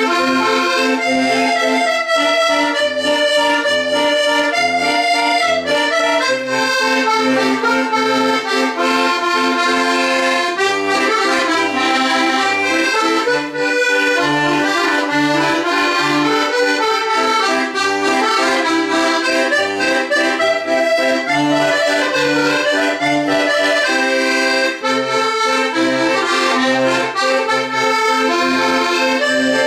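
Piermaria chromatic button accordion playing a traditional tune solo, with a right-hand melody over left-hand bass notes that keep a steady, even beat.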